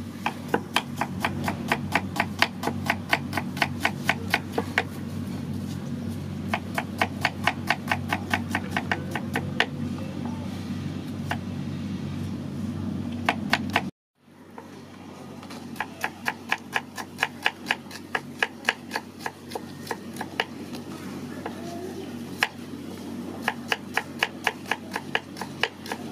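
Large kitchen knife slicing shallots on a wooden chopping board: quick, even chops in runs with short pauses, the blade knocking the board at each stroke. The sound drops out for a moment about halfway through, then the chopping resumes.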